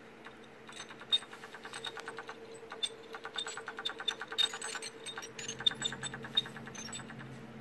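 Used 2.5-inch laptop hard drive squeaking in short runs of rapid squeaks, about ten a second, over the laptop's steady hum during a Windows install; a sign of a failing drive that may not last through the install.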